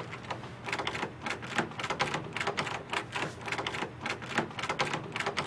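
Rapid, irregular clacking of keys being typed on a computer keyboard, several strokes a second.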